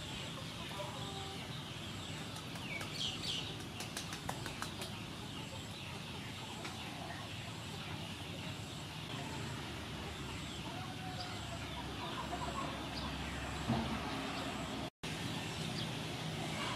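Outdoor background of birds calling, with scattered short chirps over a steady hiss; the sound drops out for an instant near the end.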